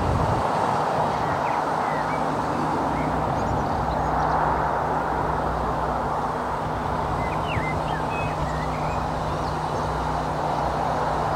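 A train running past with a steady rumble and low engine hum, with small birds chirping over it.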